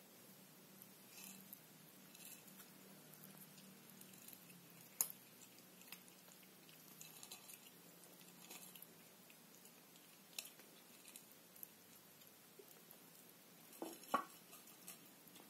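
Faint rustling and small scattered clicks of kittens crawling on bedsheet fabric, with two sharper clicks about five seconds in and near the end.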